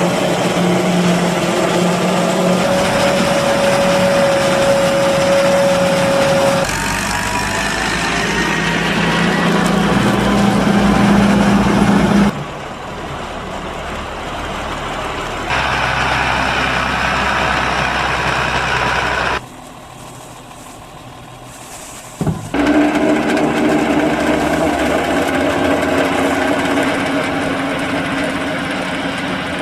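Farm machinery running steadily. First a Fox Max II forage harvester chopping maize beside a Ford tractor, then a Ford tractor hauling a forage wagon, then a Schuitemaker forage wagon unloading chopped maize with its tractor's engine running. The sound changes suddenly several times, with a quieter stretch about two-thirds of the way through.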